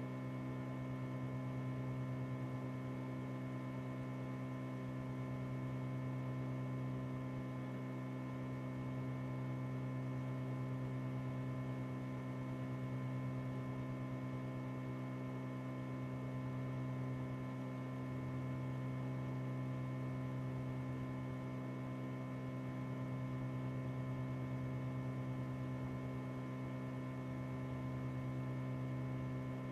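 Steady electrical mains hum with a buzz of overtones, unchanging throughout.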